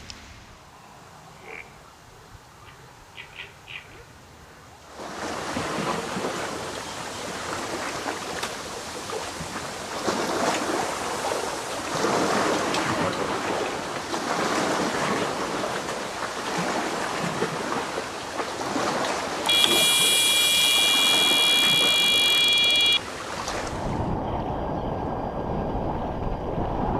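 Wind and lapping waves on the microphone. About two-thirds of the way through, an electronic carp bite alarm sounds one continuous high-pitched tone for about three seconds: a run, a fish taking line.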